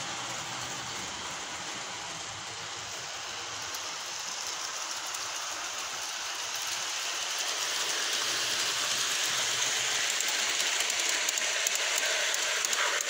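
Garden-railway model train running on outdoor track: a steady rolling rush of wheels on rails that grows louder as the carriages pass close, with quick clicking near the end.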